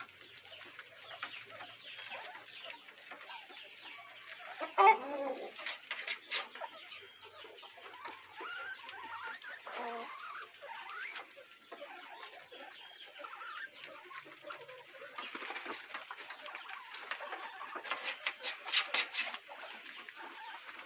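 Chickens clucking now and then, the loudest call about five seconds in, with a patter of soft clicks near the end.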